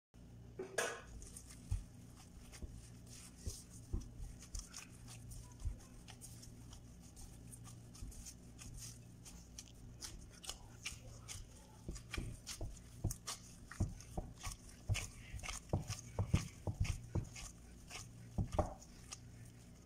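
Hands in plastic gloves mixing and kneading pizza dough in a glass bowl: irregular soft squishes, slaps and taps of dough and hands against the glass, over a steady low hum.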